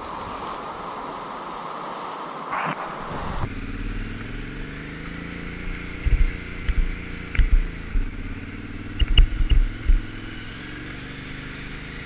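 Rushing river water for about three seconds, then a cut to a motorcycle engine running on the ride, with several low thumps, heaviest over the second half.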